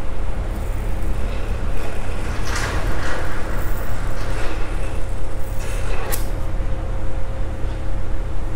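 Oxy-fuel gas welding torch flame burning with a steady hiss as it welds up a crack in a motorcycle crankcase. Two brief scraping sounds come through, one about two and a half seconds in and one about six seconds in.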